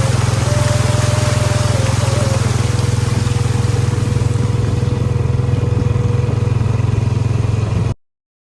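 A vehicle engine running steadily with a low, evenly pulsing drone, under a rushing noise, cutting off abruptly about eight seconds in.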